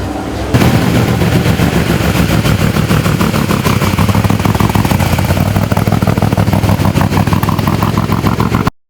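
An off-road race vehicle's engine running loud and close, with a fast, rattling pulse from the exhaust. It starts suddenly about half a second in and cuts off abruptly near the end.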